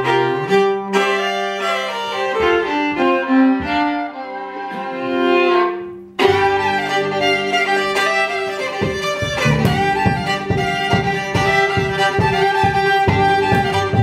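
Two fiddles playing a fast old-time fiddle tune together, with an upright bass plucking underneath. The bass drops out for a few seconds and comes back strongly in the second half. The music cuts off abruptly about six seconds in and restarts at once.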